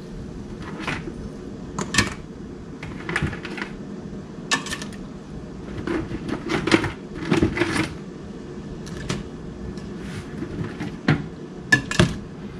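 Crabs being layered into a pot of seasoned water, their shells clicking and clattering against each other and the pot in irregular sharp knocks. A low steady hum runs underneath.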